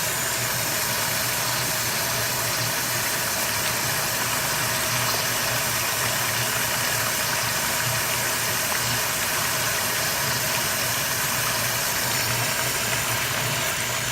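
Garden hose running at full pressure into a 1992 URC Atlas toilet, flushing it with a steady rush of water and a low hum.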